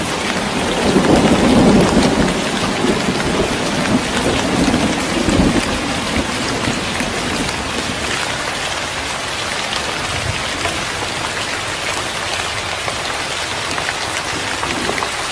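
Heavy rain falling steadily, with low rolls of thunder strongest in the first few seconds; it stops abruptly at the end.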